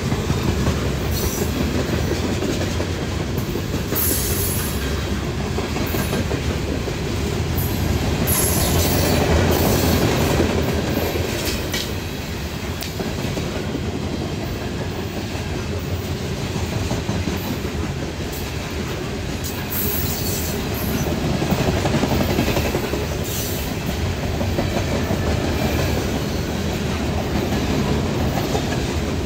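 Loaded coal gondolas of a freight train rolling past close by. The steel wheels rumble and clack steadily over the rail joints, with brief high-pitched wheel squeals a few times.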